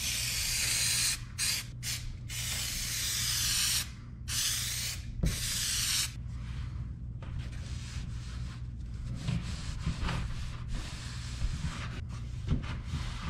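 Aerosol can of 3M spray adhesive sprayed in about five long hissing bursts with short pauses, over roughly the first six seconds. After that comes quieter rubbing and handling of the fabric.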